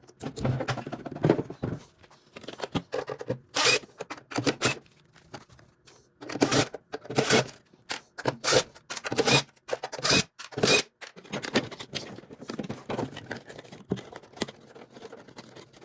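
A tankless water heater's parts being worked loose by hand: irregular bursts of scraping, clicking and rattling, loudest in a few clusters. A part inside is clamped on very tightly.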